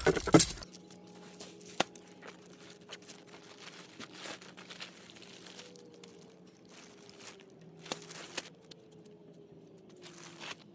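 Tent fabric and packing crinkling and rustling as a tent is unpacked, with scattered sharp clicks and taps. A faint steady hum sits underneath.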